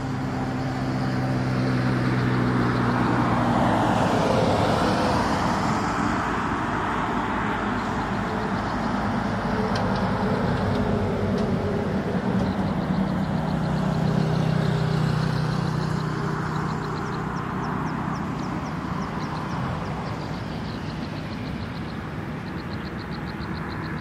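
Motor vehicles passing by: a rushing noise that swells and fades twice, with a low engine hum during the second pass. Faint rapid high trills come in briefly near the start and again near the end.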